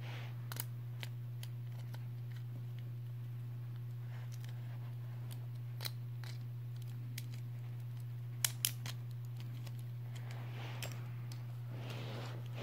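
Small hard clicks of Beyblade Burst parts, a metal forge disc and plastic layer and driver, being fitted and twisted together by hand, with two sharp clicks in quick succession about two-thirds of the way through. A steady low hum sits under it all.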